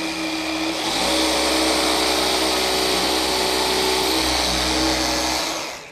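Festool PSC 420 Carvex 18V brushless cordless jigsaw sawing through plywood with a steady buzzing run. About a second in it speeds up and gets louder, as its auto mode ramps up when the blade enters the wood. The motor winds down and stops near the end.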